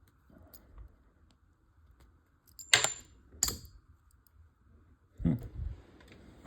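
Small plastic model parts being handled and knocked together: two sharp clicks close together about three seconds in, then a duller knock near the end, with faint handling noise between.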